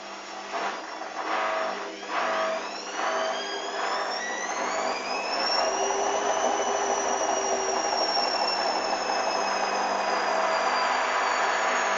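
Hoover DYN 8144 D washing machine's motor and drum speeding up into a spin. After a few uneven surges, the motor's whine climbs in pitch over about five seconds, then holds steady and sinks slightly near the end.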